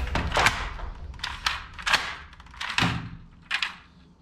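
Sharp plastic clacks and knocks from a toy double-barrel break-action shotgun being handled and its hinged barrels worked, about eight in all, growing fainter towards the end.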